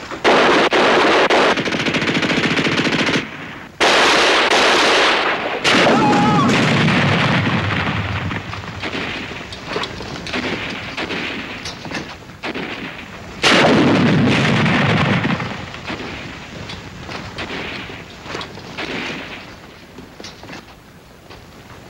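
Battle gunfire: rapid machine-gun bursts and shots, sustained and loud, with several louder volleys in the first half and another about two-thirds through. It thins out toward the end.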